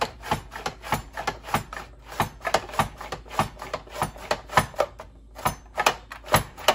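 Pampered Chef Rapid-Prep Mandoline cutting a carrot into thin julienne sticks as its pusher is worked down the chute: a quick, even run of sharp plastic clacks, about three a second.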